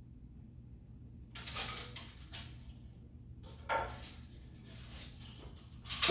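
Long wooden board knocking and rustling as it is handled, with a sharper knock a little past halfway and a louder clatter near the end as it is laid across a work platform.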